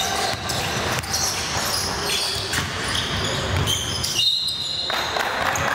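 Basketball game play on an indoor court: the ball bouncing on the floor, with sneakers giving short high-pitched squeals, one longer squeal about four seconds in.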